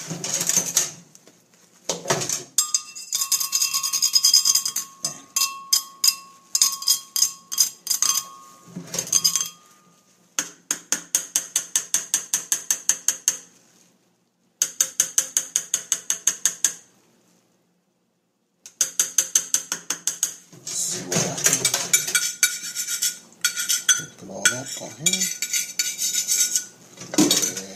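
Kitchen knife chopping on a cutting board in quick even strokes, about six a second, in several runs that stop and start again.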